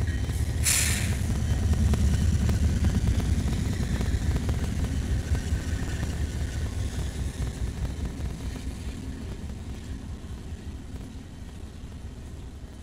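Low rumble of a passing train, loudest about two seconds in and fading slowly as it moves away, with a short burst of hiss near the start.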